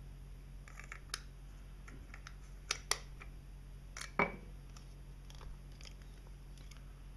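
Small clicks and taps of a camera lens and its caps being handled. Two sharper ticks come near three seconds in, and a louder click with a brief ring about four seconds in.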